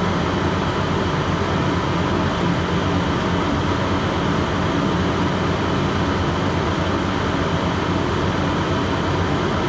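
Steady low drone of a ship's engine running, with an even rushing noise over it.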